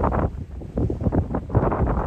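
Gusty wind buffeting the microphone in uneven, rumbling gusts, easing briefly about half a second in before picking up again.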